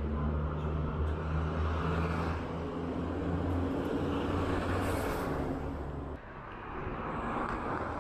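Diesel engine of a KSRTC bus running steadily as it passes close by, over general road noise. About six seconds in the engine hum cuts off suddenly, leaving quieter street noise.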